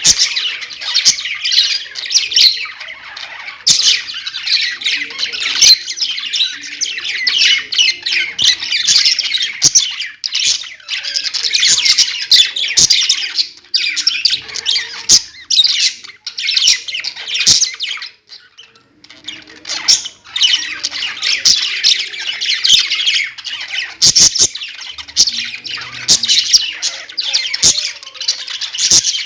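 Pet budgerigars chattering, with many rapid overlapping chirps and squawks and a short lull about eighteen seconds in.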